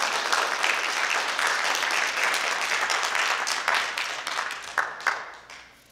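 Audience applauding, dying away near the end with a few last separate claps.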